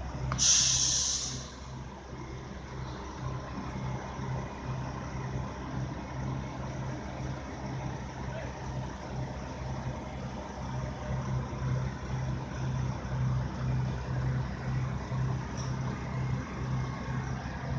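Heavy diesel vehicle engine running steadily with an even, rhythmic low throb. A short, loud hiss comes about half a second in.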